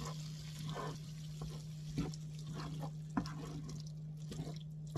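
A wooden spatula stirring a wet chickpea-flour scramble in a frying pan, with soft wet squelching as it cooks down and a couple of sharp taps against the pan, about two seconds and three seconds in. A steady low hum runs underneath.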